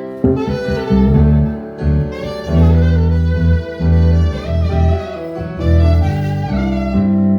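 Instrumental jam music: a violin plays a melody with vibrato over deep bass notes that change about every second.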